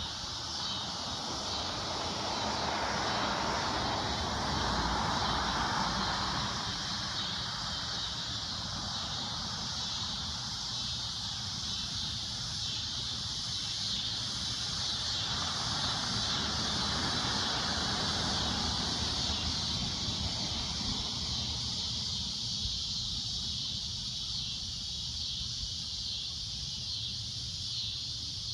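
Cicadas droning in a steady, high, shrill buzz. Twice a lower rushing sound swells and fades, a few seconds in and again past the middle.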